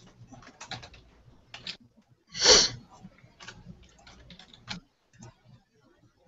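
Computer keyboard keys clicking irregularly as someone types, thinning out and stopping about five seconds in. One short, loud burst of noise comes about two and a half seconds in.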